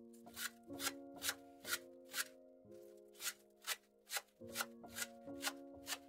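Chef's knife chopping spring onions on a wooden cutting board: crisp chops about two a second, with a short pause about halfway through.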